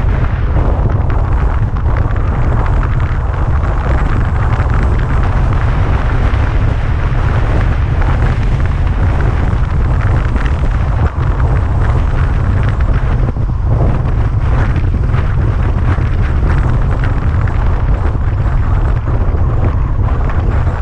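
Steady, heavy wind buffeting on the microphone of a camera riding on a moving car, over the car's road noise.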